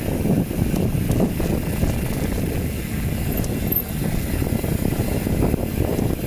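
Mountain bike running down a rough downhill trail: a steady low rumble with frequent small knocks and rattles.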